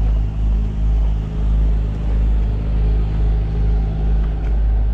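Car engine running at low speed, heard from inside the cabin as a steady low drone that swells and eases gently about every half second.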